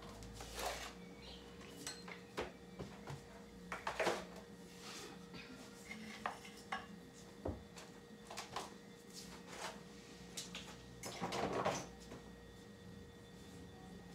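Scattered clinks, clatters and knocks of small household objects being handled, loudest about four seconds in and in a cluster near the end, over a faint steady hum.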